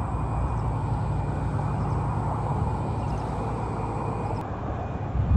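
A steady low rumble with a fainter hiss over it, with no single event standing out.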